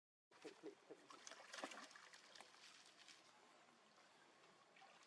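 Faint splashing and trickling water, with a cluster of small splashes and crackles in the first three seconds that then thins out.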